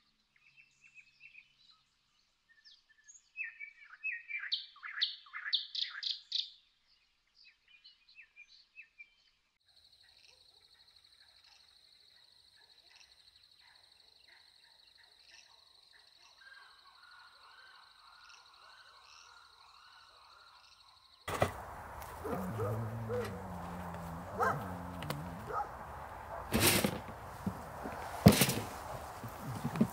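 Small birds chirping and twittering, busiest a few seconds in, then a steady high-pitched trill with faint warbling below it. About two-thirds of the way through, louder rustling and knocking of camp gear being handled takes over, with two sharp knocks near the end.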